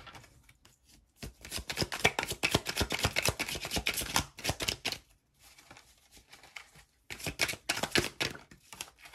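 A tarot deck being shuffled by hand: a rapid run of card clicks and flicks lasting about three and a half seconds, a quieter stretch, then another short run near the end.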